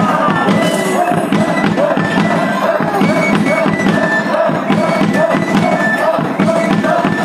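Live music for a traditional dance: a melody of short, repeating notes played over steady percussion.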